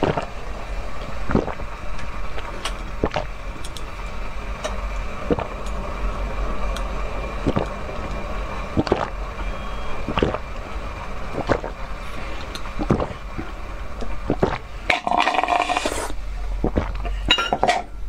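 Slurping and sucking of liquid from cups held to the lips, with sharp wet clicks about every second or so and a longer slurp about fifteen seconds in.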